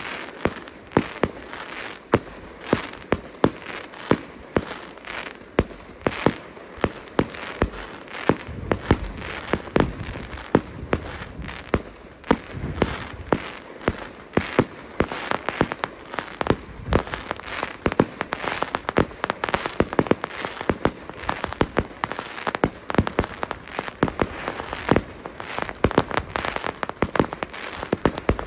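Fireworks display: a steady run of sharp bangs, about two a second, over continuous hissing and crackling from sparking fountains and bursting stars.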